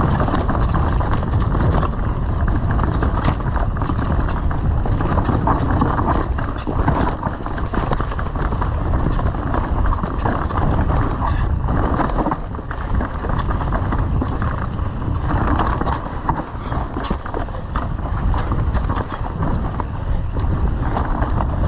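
Mountain bike ridden down a dirt trail: a continuous rumble of tyres and wind on the microphone, with constant rattling clicks as the bike runs over bumps.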